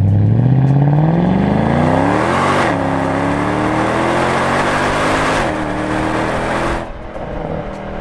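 Mercedes CLK63 AMG's M156 6.2-litre V8 under hard acceleration. The engine note climbs steadily in pitch, drops at a quick upshift about two and a half seconds in and again at about five and a half seconds, and climbs again after each. The level falls away about seven seconds in as the throttle eases.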